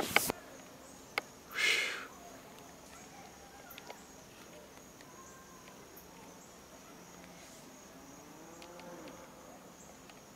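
Steady high-pitched chirring of insects from the woods. The camera is handled briefly in the first two seconds with a knock and a rustle, and a distant animal calls with a long rising-and-falling low call about eight seconds in.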